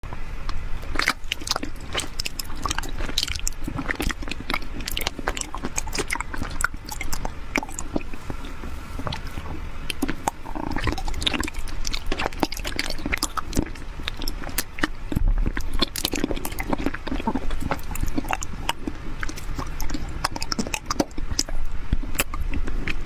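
Close-miked biting and chewing of colourful honey jelly candies: a dense, steady run of crisp clicks and crackles.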